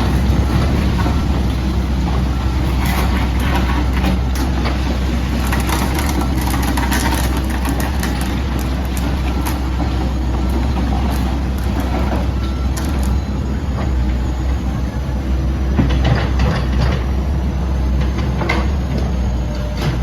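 Komatsu PC78UU-8 excavator's diesel engine running steadily, with scattered knocks and clatter, clustered near the start and again near the end.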